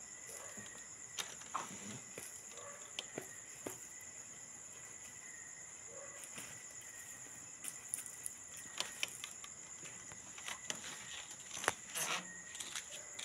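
Night-time insect chorus, a steady high-pitched trill, with scattered clicks and scuffs over it, the loudest a little before the end.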